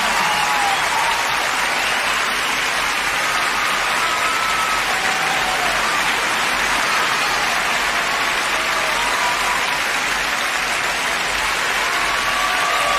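Large theatre audience applauding steadily, a dense even clapping with no break.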